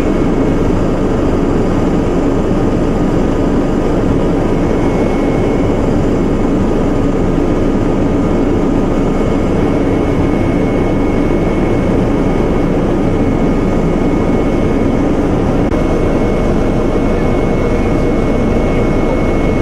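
Helicopter turbine engine and rotor drone heard from inside the cabin in flight, steady and unbroken, with a constant high whine over the rumble.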